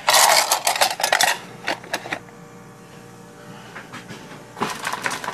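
Plastic bags of vegetables being rustled and crinkled while they are handled and pulled out. The crinkling is loudest for the first second or two, dies down, and starts again near the end.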